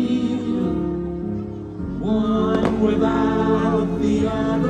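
Fireworks show soundtrack: music with singing played over the park's loudspeakers. It dips briefly and swells back about two seconds in, with a single firework bang a little after.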